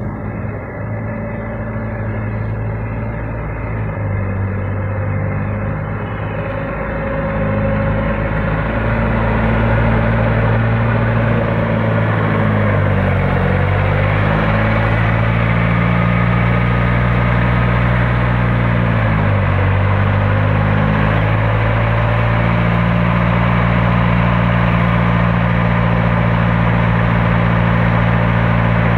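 Forklift engine running steadily, growing louder over the first several seconds as it comes close. Its pitch sags briefly twice, about halfway through and again several seconds later, then recovers.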